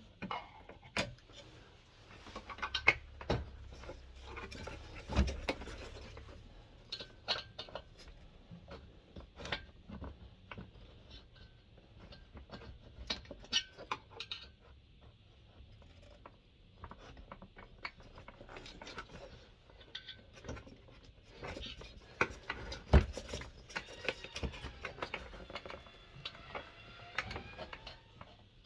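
Irregular clicks, knocks and metal clinks of hand tools and loose parts while a diesel heater is being dismantled, with a few heavier knocks and some squeaks near the end as a part is worked free.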